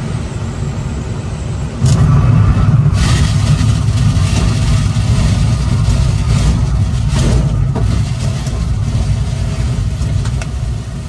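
Schweizer SGS 2-33A glider's airframe rumbling and rattling as its wheel rolls over a grass strip on the landing rollout. The rumble jumps louder about two seconds in, with a few knocks from bumps, then slowly fades as the glider slows.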